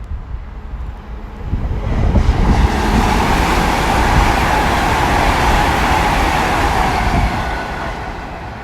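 GWR Class 800 Intercity Express Train running through the station at speed without stopping: a rushing rumble that swells about two seconds in, holds for about five seconds, and fades near the end.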